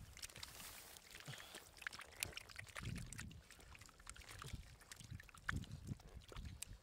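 Bare hands squelching through thick wet mud and pushing it into a plastic basket: irregular small wet splats and clicks with soft low slaps.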